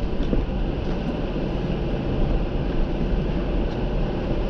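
Off-road vehicle's engine running steadily, a constant low rumble with no change in pitch.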